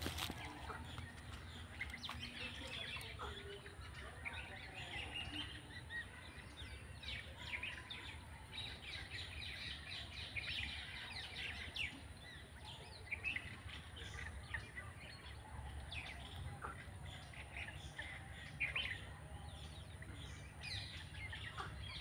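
Faint bird chirping outdoors: many short, scattered high chirps and twitters throughout, over a steady low rumble.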